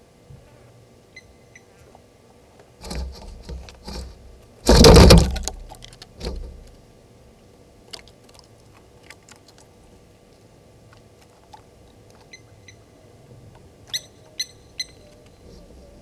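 A loud, noisy burst lasting about a second, about five seconds in, with clusters of clicks and rattles just before and after it. Near the end, three short sharp chirps from a small bird.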